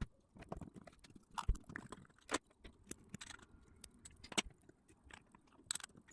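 Irregular small clicks and light taps of a metal watch case and its front bezel being handled and repositioned by hand.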